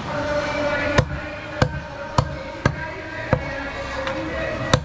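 Butcher's cleaver chopping goat meat: six hard chops, five about one every half second, then a short pause and one more near the end.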